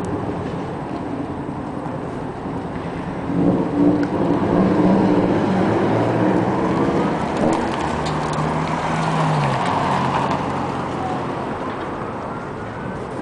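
Low vehicle engine rumble with a steady noisy background, swelling briefly about four seconds in and again near nine seconds. A faint siren rises and falls in the second half.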